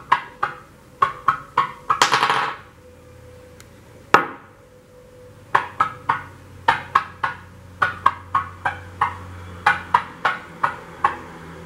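Wooden fidget stick with steel-weighted ends flipping end over end on a tabletop, its ends knocking down in a quick series of sharp wooden clacks, about three a second. About two seconds in there is a brief rattle, then a single loud knock about four seconds in, and after a pause the clacking resumes.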